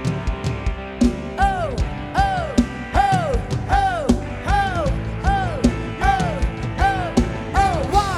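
Live rot hae band music: a lead instrument plays the same note bent up and back down, about twice a second, over a steady drum beat.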